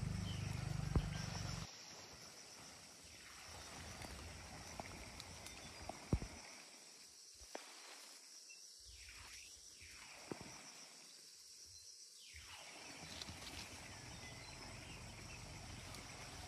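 Faint outdoor ambience. A low rumble in the first second and a half cuts off suddenly, leaving a quiet steady hiss with a thin high steady drone and a few light clicks.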